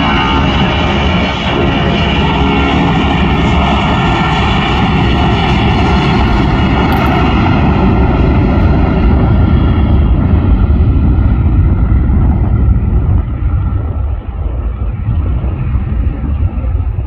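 Boeing 757 jet engines at takeoff power during the takeoff roll: a loud jet roar with a high whine made of many steady tones. The whine fades after about ten seconds as the plane moves away, leaving a deep rumble.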